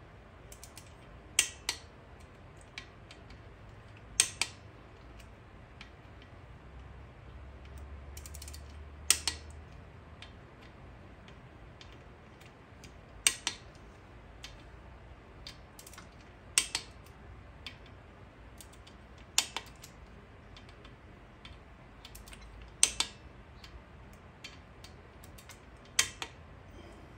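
Click-type torque wrench breaking over at its set torque as the camshaft cap bolts on a Kawasaki KFX 400 cylinder head are tightened in stages: a sharp double click about every three seconds, eight times, with faint ratchet ticks between.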